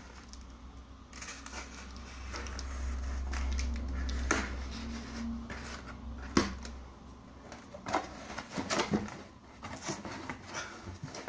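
A parcel being cut open with a knife and unwrapped: scraping and rustling of the packaging with several sharp clicks and knocks as it is handled, over a low rumble of handling noise through the first several seconds.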